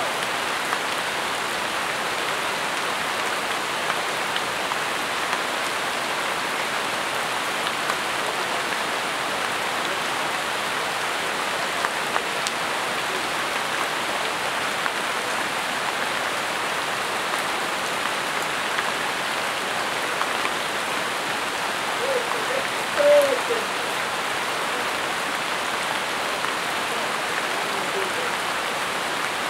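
Steady rain falling on jungle foliage, an even hiss. Near the end a brief, louder wavering call stands out over it.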